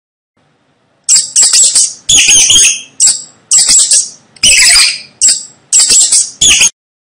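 Mouse squeaking: about nine short bursts of loud, high-pitched squeaks in quick succession, starting about a second in and stopping shortly before the end.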